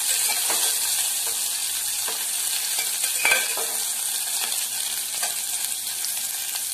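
Sliced onions and curry leaves sizzling steadily in hot oil in a pressure cooker, with a metal spoon scraping and clinking against the pot as they are stirred; one sharper clink about three seconds in.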